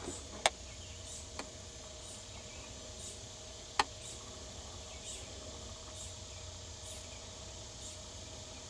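Insects chirping, a faint high chirp repeating about once a second over steady background noise. A few sharp clicks stand out, two in the first second and a half and one a little before four seconds in.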